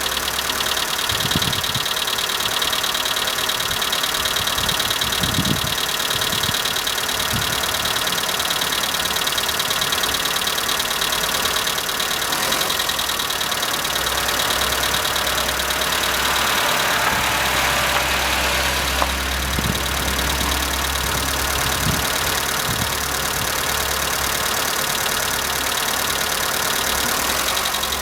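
Skoda Fabia's 1.4 16-valve four-cylinder petrol engine (BXW) idling steadily with a fast, even valvetrain ticking. The owner blames this ticking on the hydraulic valve lifters, and it has persisted on cold mornings even though all the lifters have been replaced.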